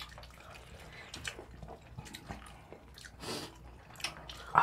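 Quiet eating sounds at a meal of fish cakes: chewing and small clicks of chopsticks, with a short, sharper and louder sound near the end.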